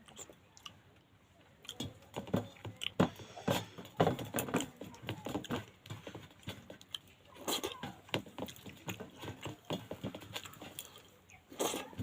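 Close-up chewing and lip-smacking while eating pangas fish curry: a run of irregular wet clicks and smacks, with a short pause near the end.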